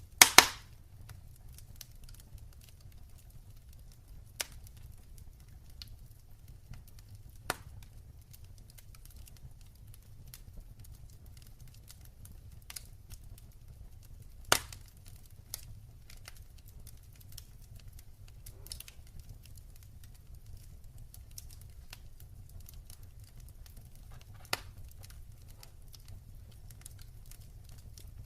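Wood fire in a fireplace crackling, with a loud double pop right at the start and a handful of sharper pops scattered through, over many small ticks and a low steady rumble of the flames.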